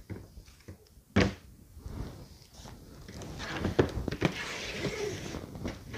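Shoes being set down and shifted about on a folding table: one sharp knock about a second in, then a run of soft taps and rustling as the shoes are moved around.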